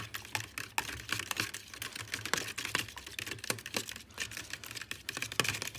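A metal fork beating eggs and milk in a bowl: rapid, irregular clicking and tapping as the tines strike the bowl's sides and bottom.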